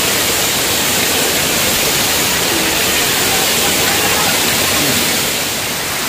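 Small waterfall pouring and splashing right at the microphone, a loud steady rush of falling water.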